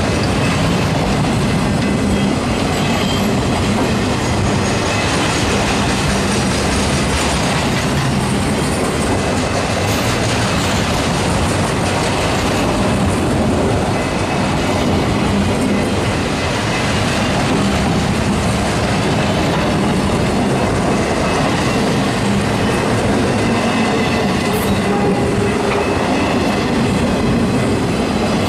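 Autorack freight cars rolling past close by: the steady rumble and clatter of steel wheels on jointed rail, with a thin high wheel squeal running under it.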